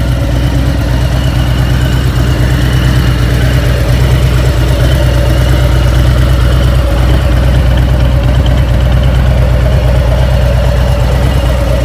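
Harley-Davidson motorcycle's V-twin engine idling steadily, loud and even throughout.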